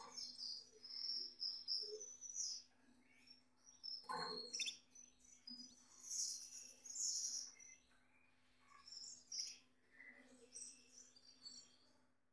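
Male Gloster canary singing in short high bursts of chirps and trills with pauses between them: the excited courtship song a cock canary sings to stimulate the hen on the nest.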